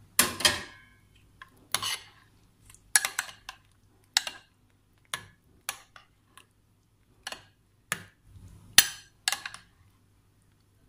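A steel spoon clinking and tapping against a glass bowl while mixing dahi bade and chickpeas into yogurt: about a dozen irregular clinks, the loudest near the end.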